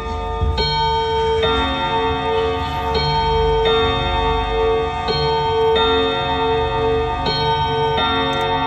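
ODO 57/10 antique French wall clock striking its two-note 'bính boong' (ding-dong) chime: four pairs of strikes, the two notes of each pair under a second apart, every note ringing on and overlapping the next.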